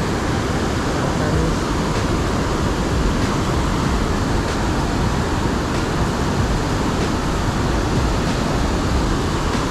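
Steady rushing noise of river water, such as the flow pouring through and below a dam, holding an even level throughout.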